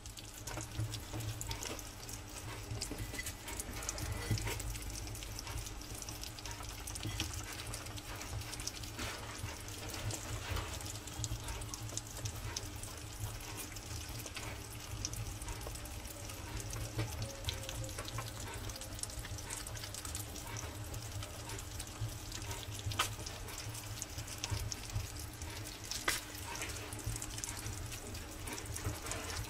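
A group of hedgehogs eating wet food together from one plate: a continuous run of small wet clicks, smacks and lapping sounds, with a low steady hum underneath.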